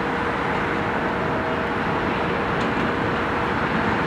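An R143 subway train approaching on elevated track, a steady rumble of wheels on rail that grows slowly louder, with a faint steady hum.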